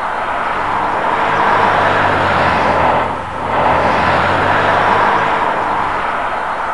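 Battery-operated toy airliner (SENIOR AIRPLANE 787) playing its electronic jet-engine sound while it drives itself across the table: a loud rushing roar that dips briefly about three seconds in and then swells again, over a low steady hum.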